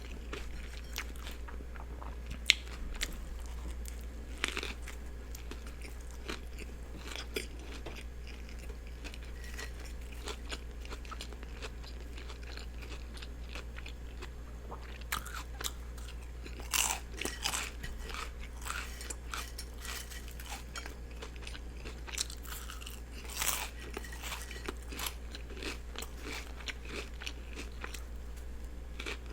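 Close-miked chewing and biting of a turkey and cheese sub with lettuce, tomato and onion: soft crunches and wet mouth clicks, with louder clusters of bites a little past halfway and again about four-fifths through. A steady low hum lies underneath.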